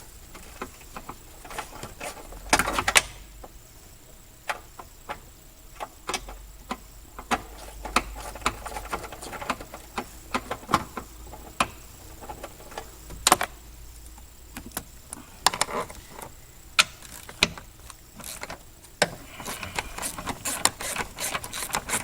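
Irregular clicks, clinks and knocks of hand tools and metal and plastic parts being handled while unbolting engine-bay parts, with a louder clatter about two to three seconds in.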